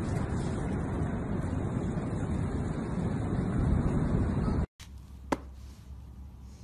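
Wind buffeting the microphone together with sea surf, a loud, steady rush that cuts off suddenly about two-thirds of the way through. A much quieter room follows, with a single sharp click.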